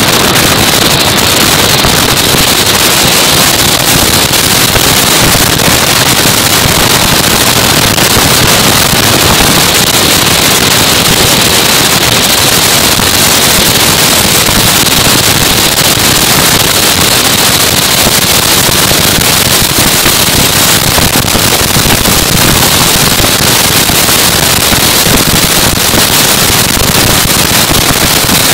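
Engineless soapbox cart running fast downhill on tarmac, heard from a microphone on the cart: a loud, steady rush of wind and rolling noise with a constant crackling rattle.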